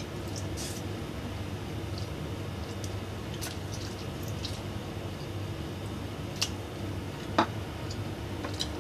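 Mouth sounds of someone eating noodles, with scattered light clicks of a utensil against a plate and one louder knock about seven seconds in, as the plate is set down on the table. A steady low hum runs underneath.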